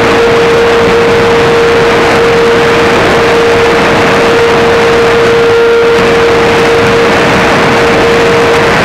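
Shortwave receiver in upper-sideband mode on 2205 kHz: loud static hiss with a steady whistle tone that breaks off near the end.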